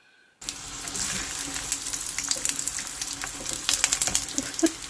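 Dumplings sizzling and crackling as they pan-fry in oil in a nonstick frying pan, with many small pops of spattering oil. It starts abruptly just under half a second in.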